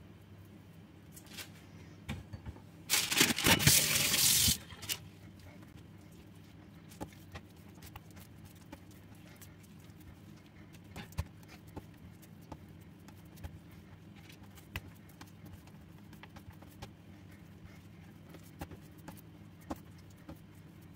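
Hands shaping bread dough into balls on a stone countertop: soft sticky pats and light clicks over a steady low hum. About three seconds in, a loud rustling noise lasts about a second and a half.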